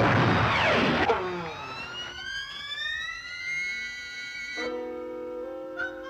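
Cartoon orchestral score with sound effects. A loud, noisy burst with falling tones fills the first second, a long glide rises slowly after it, and a held chord comes in near the end.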